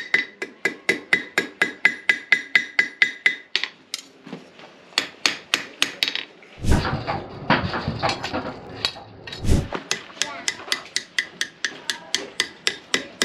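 Blacksmith's hand hammer striking hot steel on an anvil, curving the end of a crevicing tool forged from an old file. The blows come about four a second, each with a bright anvil ring. After a break and a stretch of low rumbling noise in the middle, the steady hammering resumes.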